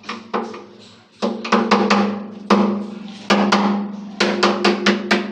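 A hammer knocking a screwdriver or chisel into a uPVC window frame: a quick, uneven series of about fifteen sharp knocks, each with a short ring, over a steady low tone.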